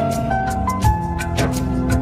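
Instrumental passage of a Hindi film song: a melody of short held notes stepping up and down in pitch over a steady percussion beat, with no singing.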